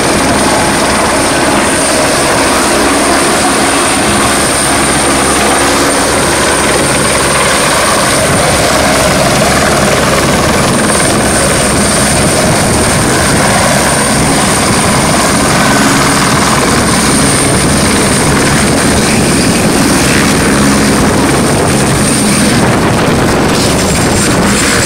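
Helicopter running, a loud, steady rotor and engine noise with a thin high whine that drops away near the end.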